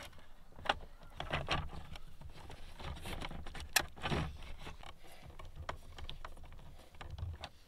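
Handling noise of stiff, heavy solar cable and a plastic combiner box being worked by hand: scattered clicks, taps and short scrapes, with a low rumble underneath.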